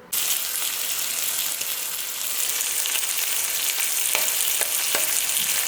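Eggs and Canadian bacon frying in butter in a pan, a steady sizzle that starts abruptly, with a few small pops about four to five seconds in.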